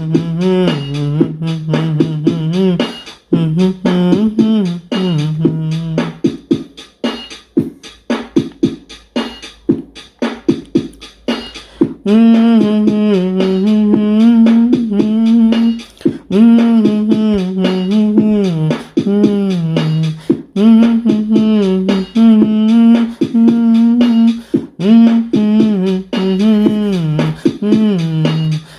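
Background music: a melody of held, gliding notes over a fast, busy beat, with the tune moving higher about twelve seconds in.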